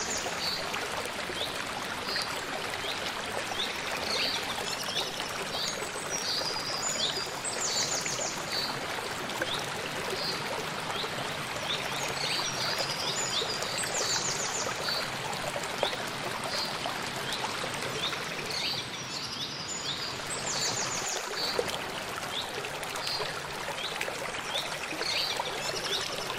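A small rocky mountain stream rushing and cascading over boulders, a steady rush of water. A bird calls over and over in short, high chirps.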